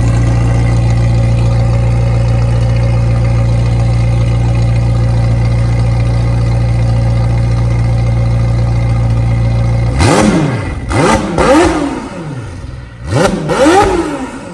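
McLaren 720S twin-turbo V8 with an Fi valved aftermarket exhaust idling steadily, then revved with about five sharp throttle blips in two quick groups, each rising and falling in pitch.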